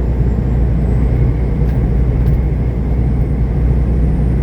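Semi-truck's engine and road noise droning steadily inside the cab while driving, with two faint clicks a little past the middle.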